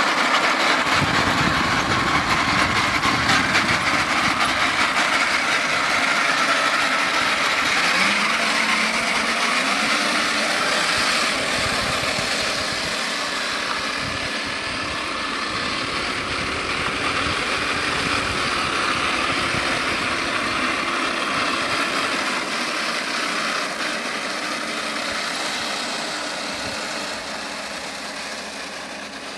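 A 1:10-scale radio-controlled T-34/85 model tank driving, its drive and tracks running with a steady mechanical noise and fine rapid clicking. There is a brief rising tone about eight seconds in, and the noise slowly fades as the tank moves away.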